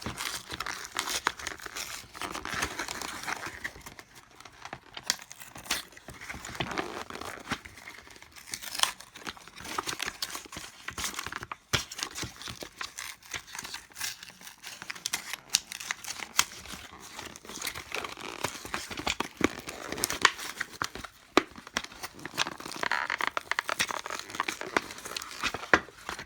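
Retail packaging being crinkled, crumpled and torn open by hand, with many small sharp crackles and clicks as it is worked at to free the item inside.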